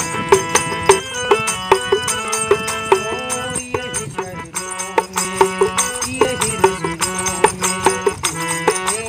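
Indian folk music: a small hand-held tambourine with jingles struck in a steady rhythm under a melody played on a keyed instrument, with notes held and changing.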